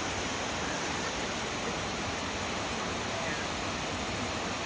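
Cunningham Falls, a waterfall cascading over several rocky levels, rushing steadily as an even, unbroken hiss of falling water.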